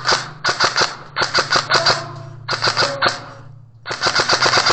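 Airsoft gun firing on full auto in about five short bursts of rapid clicking shots, each burst under a second long.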